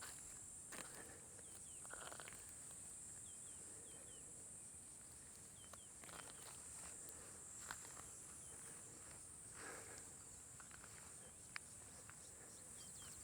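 Faint steady high-pitched insect chorus, with a few small scattered chirps and light rustles and clicks.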